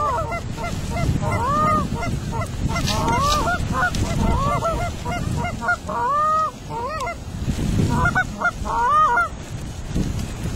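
Goose honks and clucks in a quick, ragged series of short rising-and-falling calls, stopping near the end. Wind rumbles on the microphone underneath.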